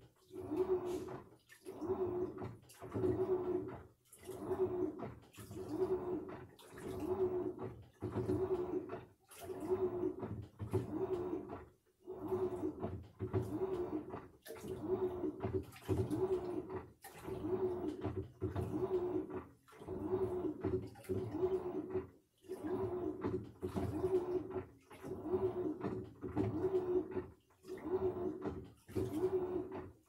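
Samsung washing machine in its wash cycle: the motor whines in short strokes about once a second as the wash is turned back and forth, with water swishing.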